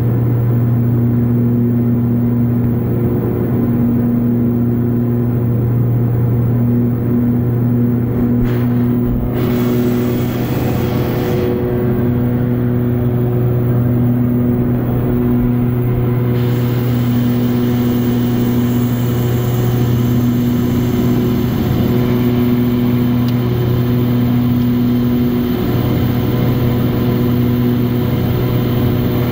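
Single-engine light airplane's piston engine and propeller heard from inside the cabin in flight: a steady, loud, deep drone with even overtones. Over it sits a rushing air hiss that swells for a few seconds near the middle and stays louder through the second half.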